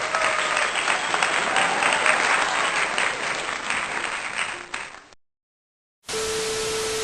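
Audience applause, many hands clapping, fading out about five seconds in. After a second of silence, a steady single tone with hiss begins near the end.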